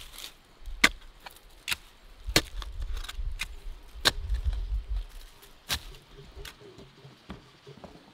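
Sharp woody knocks at uneven spacing, about seven in all, as a wooden fence post is worked into a dug post hole, over a low rumble that dies away about five seconds in.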